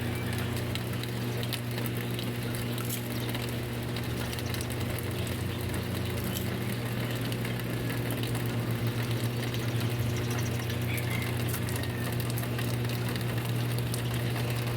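Steady rain falling, with a constant low hum from a motor or appliance running underneath.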